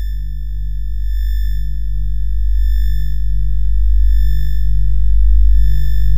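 Electronic synthesizer drone music: a deep steady bass drone under a low throbbing pulse and several thin, steady high sine-like tones, slowly swelling louder.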